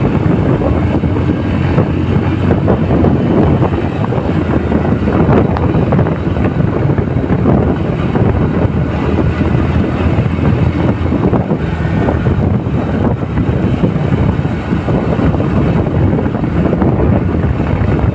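Wind buffeting the microphone, mixed with engine and road noise from a motorbike being ridden at a steady speed.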